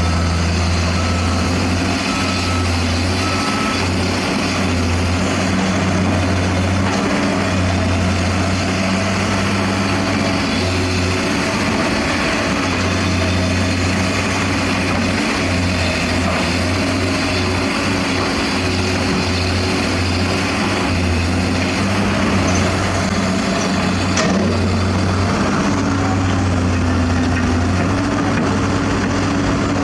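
Heavy construction machinery with diesel engines running steadily, its low engine hum rising and falling in level. A reversing alarm beeps several times in the first few seconds.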